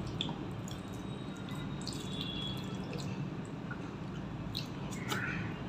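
Soft wet squishing and small clicks of fingers mixing rice with mushy papaya curry on a steel plate. A crow caws once faintly near the end.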